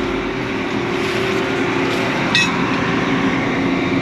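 A farm machine's engine running steadily, with one sharp metallic clink about two and a half seconds in.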